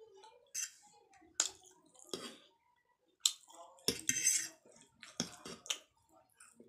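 Metal fork clicking and scraping against a plate of chowmein noodles, several sharp clinks spread through, with wet chewing and slurping sounds of eating between them.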